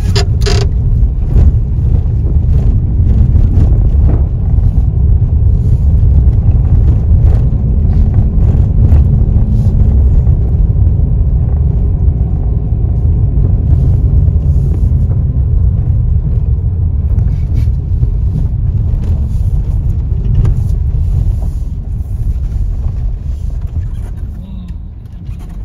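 Car driving on a rough dirt road, heard from inside the cabin: a steady low rumble of engine and tyres with scattered knocks and rattles from the bumps. It grows quieter near the end.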